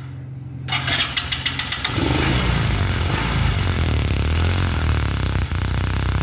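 Small single-cylinder motorcycle engine (a Chinese self-start engine) running with its spark plug cap pulled off and the ignition lead held near the plug. Rapid regular ticking comes at first, then from about two seconds in a louder, steadier engine note.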